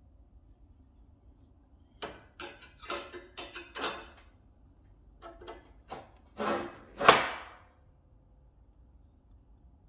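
A series of knocks and clunks at a wood-burning fireplace: a quick run of about six about two seconds in, then a few lighter knocks and two heavier clunks, the loudest about seven seconds in.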